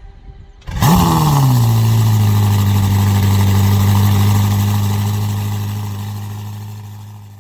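Ferrari SF90's twin-turbo V8 starting up: a sudden rev flare under a second in that rises and drops back, then a steady idle that slowly fades away.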